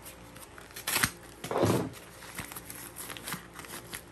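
Plastic packaging crinkling and rustling in the hands as a parcel is opened, with a sharp click about a second in, a louder rustle just after, then a run of small crackling ticks.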